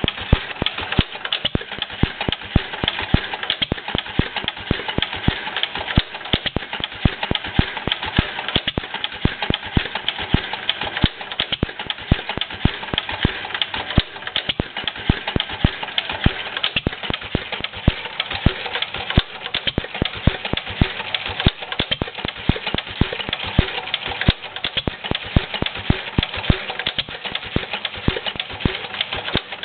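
1954 Fairbanks-Morse ZC52 oil field engine running slowly on propane, at about 100 to 150 RPM under its throttle governor. A steady, uneven clatter of clicks and knocks.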